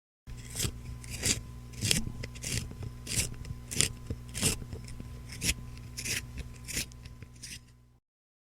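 A wooden pencil being sharpened: about a dozen short scraping, shaving strokes, roughly one and a half a second, over a low steady electrical hum. The strokes stop suddenly near the end.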